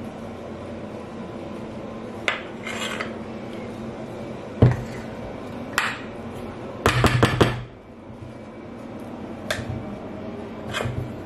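A metal spoon clinking and scraping as shredded apple filling is scooped and spooned onto pastry dough: scattered sharp knocks and clicks, a short scrape, and a quick run of taps about seven seconds in.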